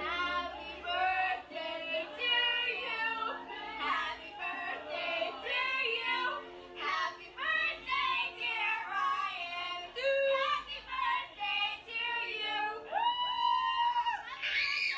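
Girls singing loudly over music, with a long held high note near the end.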